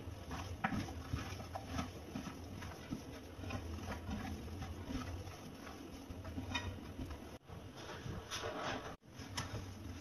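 Hands mixing and squeezing chunks of raw beef in a clay bowl: a run of small, irregular wet slaps and clicks over a low steady hum. The sound cuts out briefly twice in the second half.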